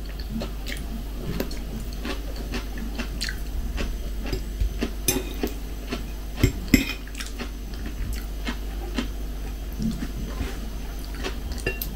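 A person chewing food close to the microphone, with scattered light clicks of a metal fork against a plate.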